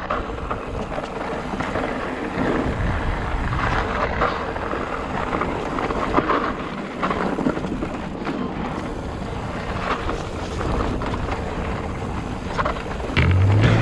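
Mountain bike rolling fast down a gravel and dirt track: the knobby tyres crunch over stones, the bike rattles and knocks over the bumps, and wind buffets the microphone. Music starts near the end.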